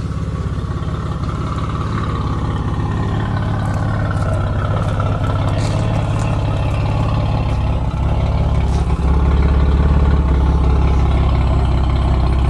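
1992 Dodge Stealth's twin-turbo V6 idling steadily, a little louder from about nine seconds in.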